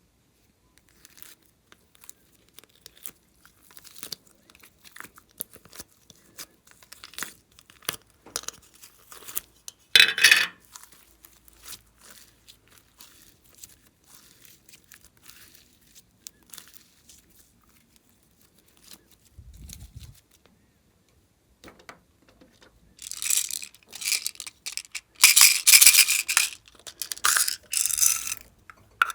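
Glossy slime being squeezed, stretched and mixed by hand, giving sticky crackling and popping in short irregular bursts. One loud burst comes about ten seconds in, and a longer, louder stretch of crackling near the end.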